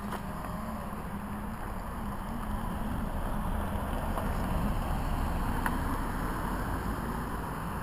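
E-flite 3D Beast RC airplane's motor and propeller droning high overhead, the pitch wavering up and down as the throttle changes during aerobatics.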